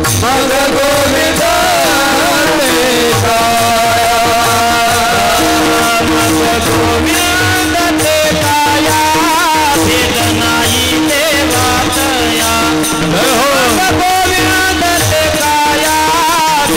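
Men's voices singing a Warkari kirtan tune (chal), with long held, ornamented notes, over a steady beat of small brass hand cymbals (tal) clashing.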